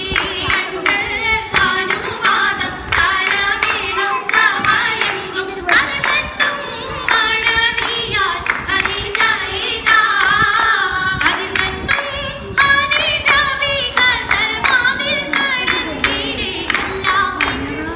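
An oppana song (Mappila song) sung without a break, with rhythmic hand clapping keeping the beat throughout.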